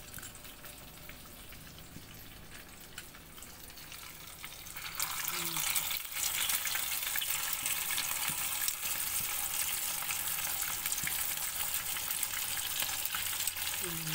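Flour-coated small tilapia deep-frying in hot oil: a soft sizzle that jumps to a loud, dense crackling sizzle about five seconds in, as another fish goes into the oil.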